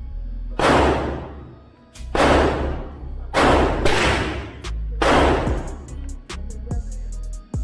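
5.56 AR-15 rifle fired in five single shots at uneven intervals over about five seconds, each shot ringing off in a long echo in the indoor range. Background music with a steady bass runs underneath.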